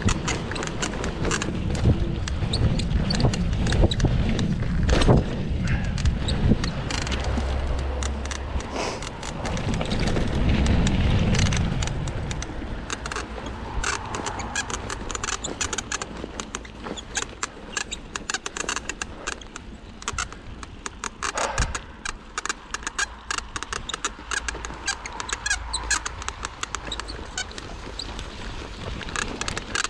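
Cannondale Scalpel mountain bike ridden down a dirt trail: tyres on the ground and constant rapid clicking and rattling from the bike over bumps. There is a heavy low rumble in the first twelve seconds or so, then a lighter clatter. Squeaks come from the bike, which the rider says needs sorting.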